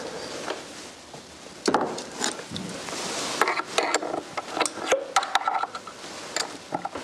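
Irregular clicks, knocks and scraping of wood and metal as wooden accordion reed blocks are handled and worked on with hand tools.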